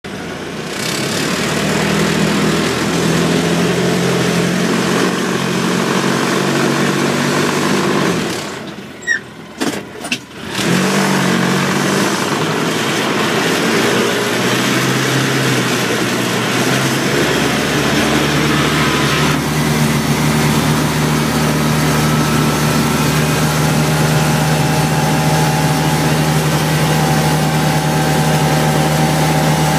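Car engine running while driving, its pitch stepping up and down as it goes. About nine seconds in the sound drops away for a couple of seconds, with a few sharp clicks, before the engine comes back and runs steadily.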